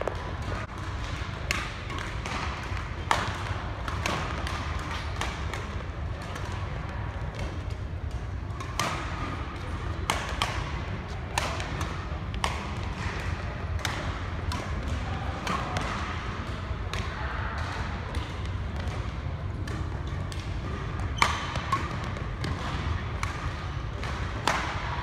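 Badminton rally: rackets hitting the shuttlecock in sharp, irregularly spaced cracks, with players' footfalls on the court, over a steady low hum.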